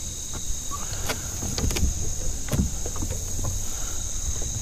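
Scattered light clicks and knocks from fishing gear being handled in a small plastic boat, over a low wind rumble and a steady high-pitched drone.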